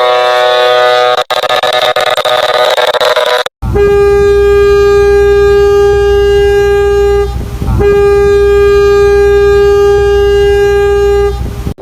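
Passenger ship's horn sounding, spliced from several clips: a horn already blowing is cut off twice, then a single-pitched horn gives two long blasts of nearly four seconds each with a short gap between, over a low steady rumble.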